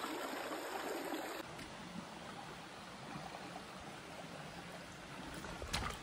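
Shallow, rocky forest stream trickling steadily, a little quieter from about a second and a half in, with a few short knocks near the end.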